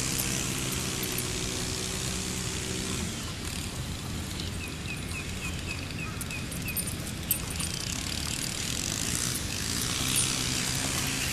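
A vehicle engine idling with a steady low hum. It fades out after a few seconds and comes back near the end. In the middle there is a quick run of about eight short high chirps.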